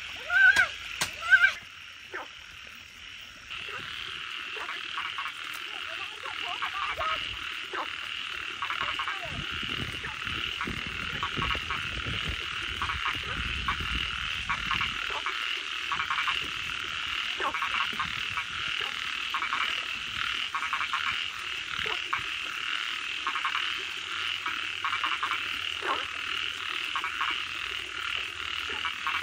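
A dense chorus of frogs calling, with many overlapping croaks and trills. A few brief loud pitched calls come in the first second and a half, and a low rumble runs from about nine to fifteen seconds in.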